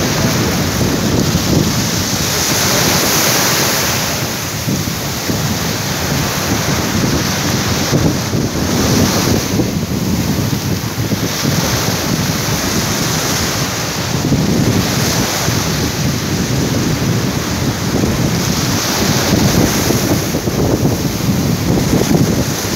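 Sea surf breaking and washing on the shore, swelling and easing every few seconds, with strong wind buffeting the microphone.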